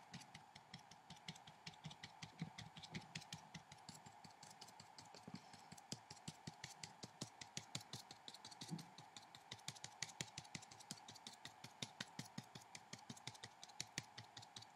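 Paintbrush tip tapping repeatedly on watercolour paper, dabbing on tiny dots: a faint, quick run of light taps, several a second.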